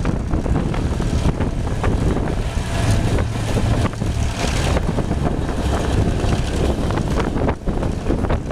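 Passenger train running along the track, heard from on board: a steady rumble from the wheels and running gear, with frequent short clicks and rattles, and wind buffeting the microphone.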